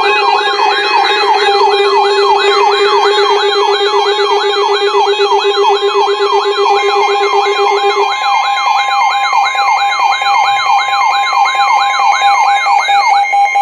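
Weather radio alert alarms for an incoming warning, several electronic tones sounding at once: a fast siren-like warble rising and falling about three times a second, over a steady beep tone. A lower pulsing tone drops out about eight seconds in.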